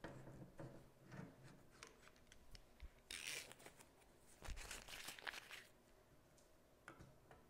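Painter's tape being peeled off a wooden chair arm: two short ripping pulls, about three seconds in and again around four and a half seconds in, with faint handling rustles and ticks around them.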